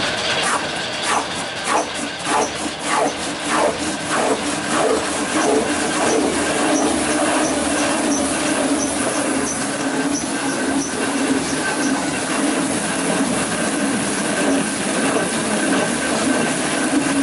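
Rotary veneer-peeling lathe turning a log. A run of knocks through the first few seconds fades into a steady running hum and hiss as the blade peels a continuous sheet of wood veneer off the log.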